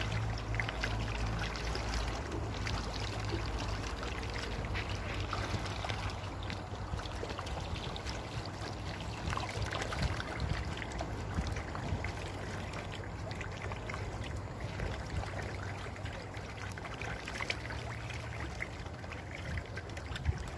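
Steady running, trickling water with many small scattered splashes and ticks, over a low hum that is strongest in the first half.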